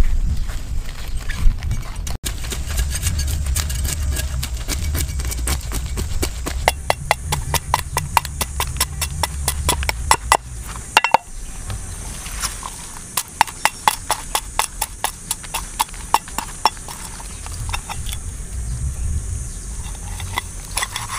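Steel cleaver scraping the scales off a large fish: quick, sharp scraping strokes, several a second, in runs with short pauses, over a low background rumble.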